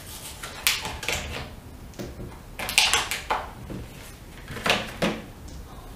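Small clicks and rattles of AAA batteries being handled and fitted into the plastic battery compartment of a round LED light, in four short clusters.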